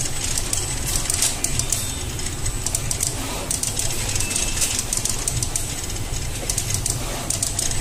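Automated multi-nozzle dispensing machine running as it lays enamel onto a plate: a steady low rumble with quick, irregular clicking and rattling over it.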